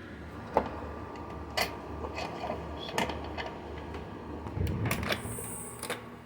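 Storm door with a cheap pneumatic closer, released from hold-open and drawn shut: scattered clicks and rattles from the door and its hardware, with a short high hiss near the end. The door stops short of latching.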